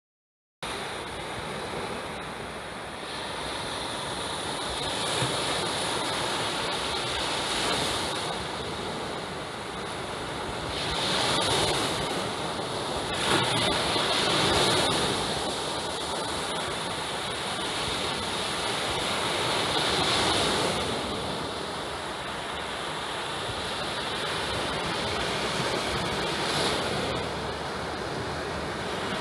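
Surf breaking and washing up a sandy beach, with a steady wash that swells louder every few seconds as each wave comes in.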